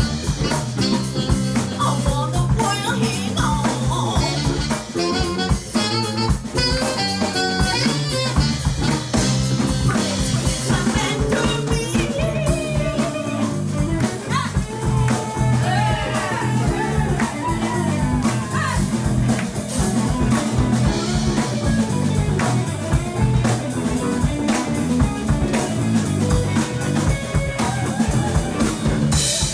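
A live band playing, with electric guitar over a drum kit.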